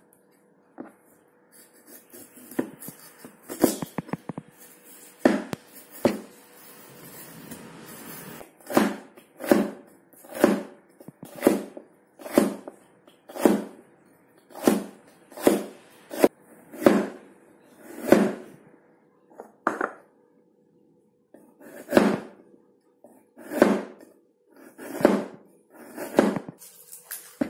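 Steel meat cleaver chopping celery and carrot on a cutting board. A few uneven chops come first, then single sharp knocks about once a second, with a short pause partway through.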